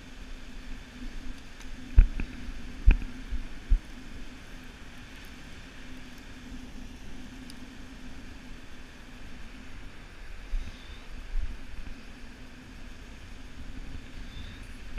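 Steady wash of small waves breaking on a sandy beach, with a few low thumps on the microphone about two to four seconds in.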